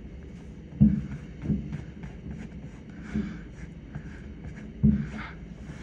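Distant fireworks shells bursting: four low booms, the loudest about a second in and near the end.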